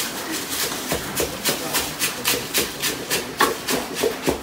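A long pestle pounding dry roasted ingredients in a mortar, a steady run of short strokes at about three to four a second.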